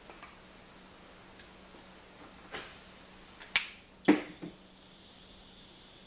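A brief hiss of air from an airbrush, then a sharp click and a few duller knocks as the airbrush and paint bottles are handled while changing colours.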